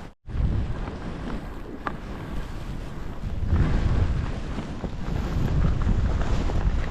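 Wind buffeting the microphone during a downhill ski run, with skis rushing over snow underneath. The sound cuts out for a split second just after the start and gets louder about halfway through.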